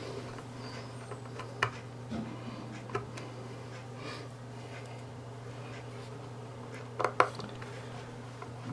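A few light clicks of a small precision screwdriver and screws against the plastic bottom case of an Android TV box as the screws are set loosely, two of them close together near the end, over a steady low hum.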